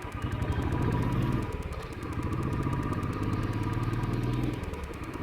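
Royal Enfield motorcycle engine running on the move with its pulsing exhaust beat. The revs rise, dip about a second and a half in as if for a gear change, then pick up and hold steady before easing off near the end.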